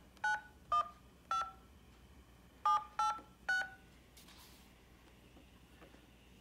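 Smartphone keypad touch-tones (DTMF): six short two-pitch beeps in two groups of three, about half a second apart, as a customer ID number is keyed into an automated phone menu.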